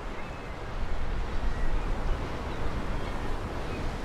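Steady rumble of wind and sea surf, with a few faint short calls from a seabird colony.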